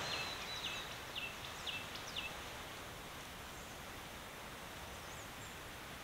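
A bird calling: a quick series of about five short, falling whistled notes in the first two seconds, with one more faint note later, over a steady outdoor background hiss.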